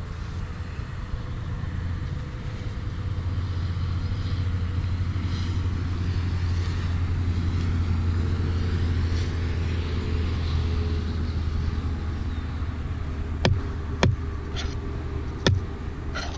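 Low rumble of a motor vehicle engine running nearby, swelling over the first half and easing off a little. Several sharp clicks come in the last few seconds.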